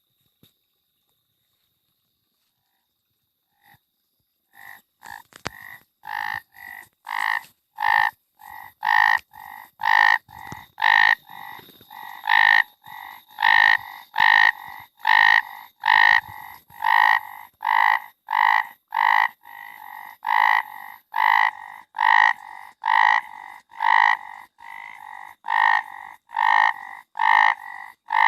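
A frog croaking over and over, about one and a half calls a second. The calls start about four and a half seconds in, after near silence, and grow louder over the first few seconds before holding steady.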